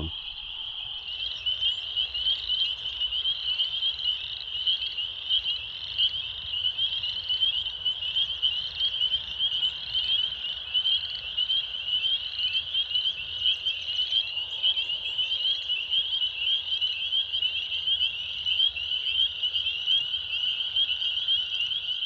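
Dense chorus of spring peepers: countless high, short, rising peeps overlapping into a continuous ringing. Toads trill more faintly underneath.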